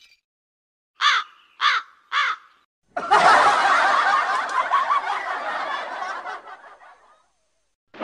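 Three short calls, each rising then falling in pitch, about half a second apart, followed by a burst of laughter from many people that fades away over about four seconds.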